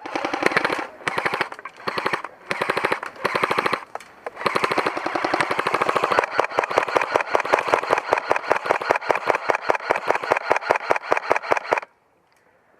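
Airsoft gun firing on full auto: a few short bursts, then one long burst of about seven seconds that cuts off abruptly near the end.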